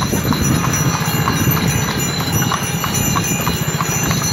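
Hooves of a pair of horses trotting on asphalt while pulling a carriage: a steady clip-clop of about three hoofbeats a second, over a steady low rumble.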